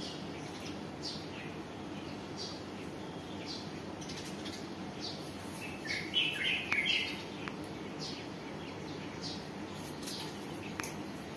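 Small birds chirping in short, repeated high notes, with a louder flurry of chirps about six seconds in, over a steady low background hiss.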